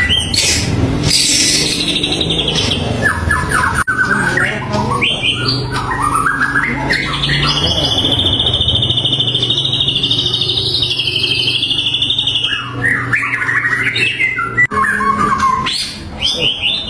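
White-rumped shama (murai batu) singing a loud, varied song of short whistled phrases, with a long rapid trill about five seconds long in the middle.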